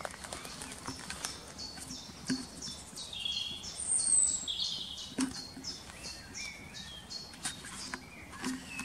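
A small songbird singing a long run of short, quick, repeated high notes, about three or four a second, with a louder warbled phrase about four seconds in. Light crackles and ticks of twigs and leaf litter underfoot are heard through it.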